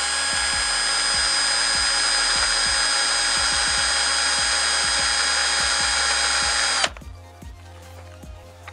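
Electric drill running at a steady speed, lightly drilling out the small air hole in a fire extinguisher's metal valve head with a 3 mm bit to improve airflow; it stops suddenly about seven seconds in.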